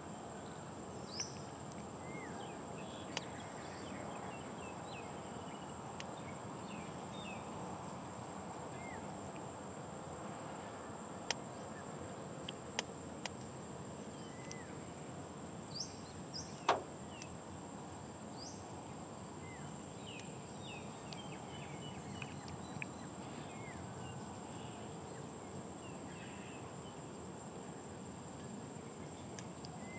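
Outdoor ambience dominated by a steady, high-pitched insect drone over a low hiss, with scattered faint bird chirps and a few sharp clicks. A little past the middle comes one quick falling whistle, the loudest single sound.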